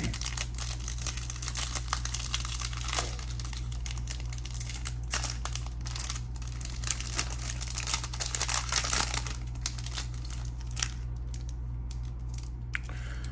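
Foil trading-card pack being torn open and crinkled by hand: an irregular crackling that gets busier about halfway through, over a steady low hum.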